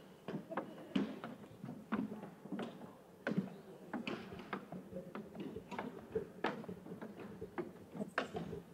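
Footsteps at a steady walking pace on a hard surface, about two a second.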